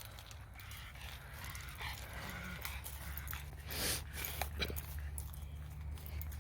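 A dog makes a short breathy sound about four seconds in, over a steady low rumble and faint rustling.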